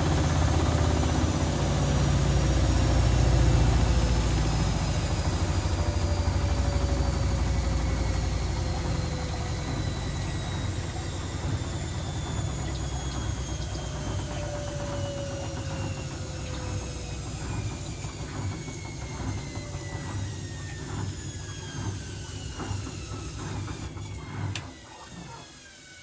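Zanussi ZWF16070W1 front-loading washing machine spinning down at the end of a spin: the motor's whine falls steadily in pitch and the drum's rumble fades as the drum slows. A few clicks come near the end as it nears a stop.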